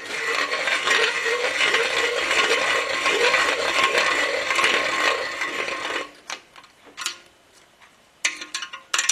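Neway 60-degree valve seat cutter turned by hand on a Willys L-head valve seat, metal scraping and chattering for about six seconds, then a few light clicks as it stops. The cutter is hanging up on its pilot.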